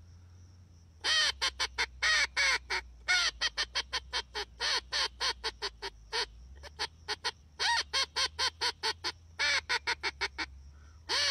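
Reyoka duck call blown to imitate a female common teal: several runs of quick, short quacks separated by brief pauses.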